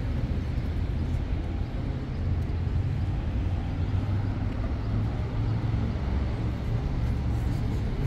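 City street traffic: a steady low rumble of cars driving past.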